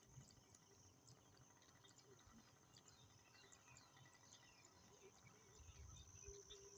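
Near silence with faint countryside ambience: insects trilling steadily and high, with scattered short bird chirps.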